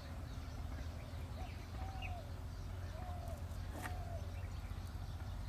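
A bird giving about four short, even-pitched calls in the middle stretch, over a steady low rumble, with one sharp click just before the last call.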